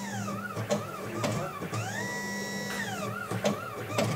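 Automatic wire cutting and stripping machine running its cycle: its motors whine up in pitch, hold, and wind back down, twice, as it feeds, cuts and strips the wire, with sharp clicks in between.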